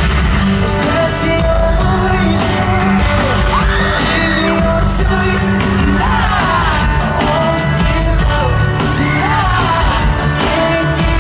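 Live pop-rock band with guitars and drums playing a song in a large hall, heard from within the crowd, with singing and fans yelling and whooping along.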